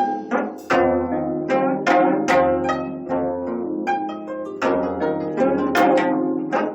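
A quartet of 25-string gayageum (Korean plucked zithers) playing a run of plucked notes and chords, about two to three attacks a second, each ringing and dying away.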